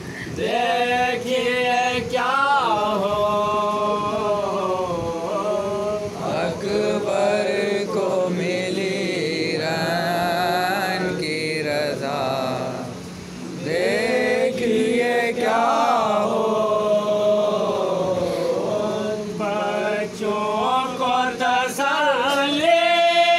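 Men's voices chanting a noha, a Shia mourning lament, in long drawn-out melodic lines: one lead voice with others singing along, pausing briefly about halfway through.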